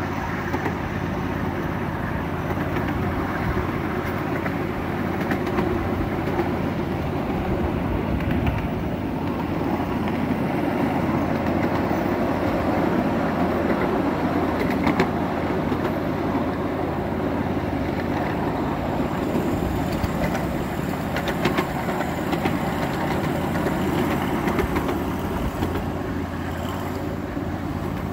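Miniature trains running on a model railway layout: a steady rolling and motor noise with a low hum and a few faint clicks.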